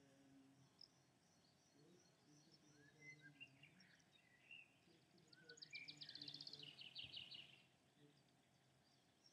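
Faint birdsong: scattered high chirps and short sliding calls, with a quick trill of about ten notes a second halfway through, over a faint low hum.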